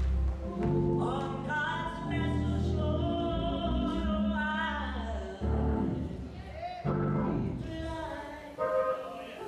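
A woman singing a slow solo into a microphone, holding and bending long notes, over instrumental accompaniment with deep held bass notes.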